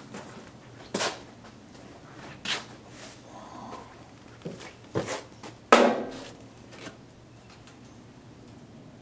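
A few separate sharp knocks and clatters of hard parts being handled, about four in all. The loudest comes a little before six seconds in and rings briefly.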